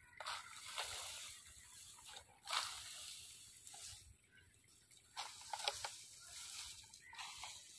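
Dry, cut crop stalks rustling and crackling as a long wooden fork lifts and tosses them, in several swells of a second or two each.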